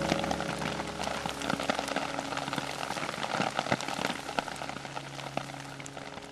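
Rain pattering on grass and leaves, a dense spray of small drop ticks, with a few low held piano notes underneath; the whole sound fades down over the last couple of seconds.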